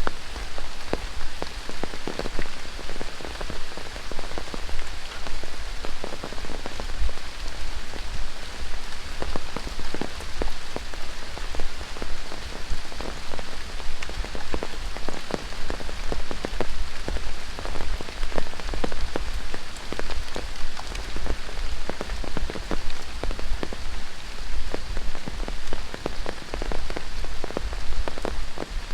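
Steady tropical rain falling in a rainforest, a dense hiss of rainfall with frequent, irregular close drop hits.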